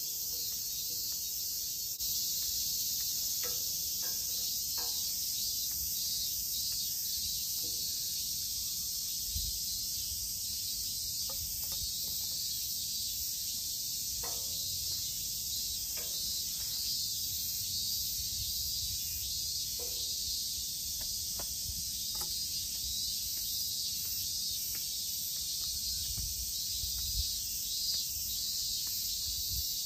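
Steady, high insect chorus hissing without a break, with a few faint short clicks scattered through it and some low bumps near the end.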